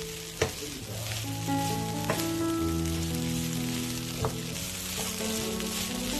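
Potatoes sizzling as they fry in oil in a pan, with three sharp clicks, about half a second, two seconds and four seconds in. Soft background music of held notes plays underneath.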